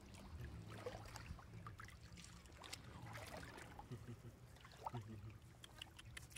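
Faint water splashing and trickling, with scattered small splashes and knocks, as hands and legs move through shallow water while fishing by hand.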